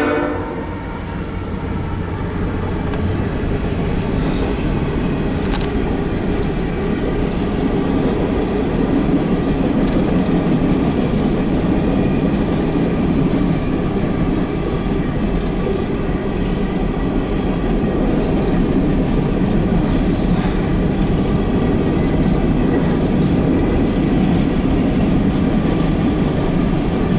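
CSX empty coal train passing close by: a steady rumble and clatter of wheels on rail as the hopper cars roll past, building slightly in the first few seconds and then holding even.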